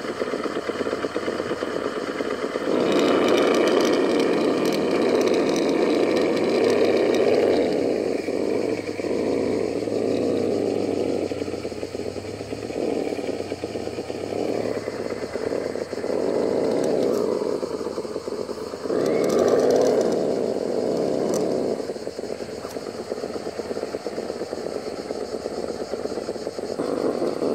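Electric motor and gearbox of a Vaterra Ascender RC rock crawler whining as it crawls down a boulder, swelling in surges with the throttle, loudest a few seconds in and again about two-thirds of the way through.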